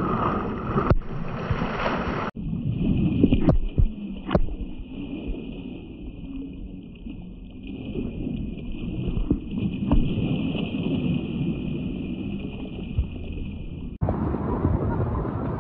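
Wind rumbling on the microphone over water lapping and sloshing, with two sharp knocks about three and four seconds in.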